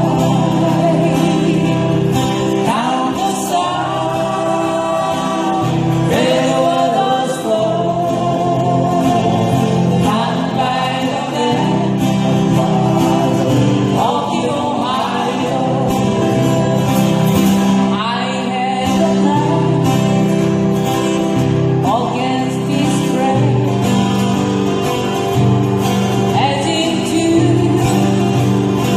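Live acoustic guitar band playing a folk-pop ballad, with voices singing together over strummed guitars.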